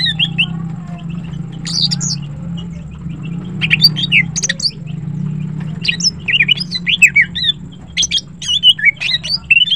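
Female green leafbird (cucak ijo) calling in bouts of quick chirps and downward-sliding whistled notes, four bursts with short gaps between them. A steady low hum runs underneath.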